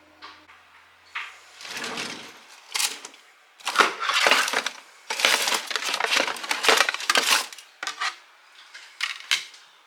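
Irregular bursts of crinkling and clattering, the sound of household items being handled, densest around the middle.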